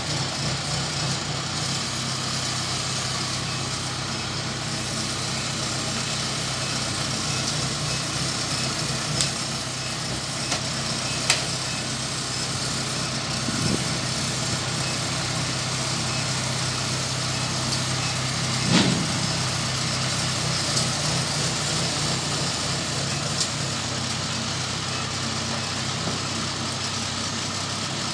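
Kubota crawler combine harvester's diesel engine running steadily as the machine creeps forward on its tracks, with a few sharp clanks along the way.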